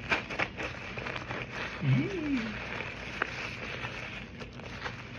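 Foamy cotton soap slime being squished and worked by hand, with wet crackling and small clicks. About two seconds in, a brief tone rises and then falls in pitch.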